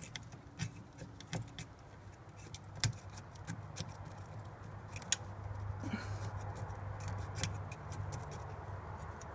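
Small sculpting tool working soft epoxy under a stained glass flower, giving faint scattered clicks and taps. A low steady hum runs underneath and grows a little stronger after the middle.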